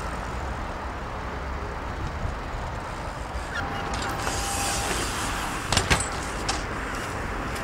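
BMX bikes rolling over paving, a steady rumbling hiss with a few sharp knocks about six seconds in.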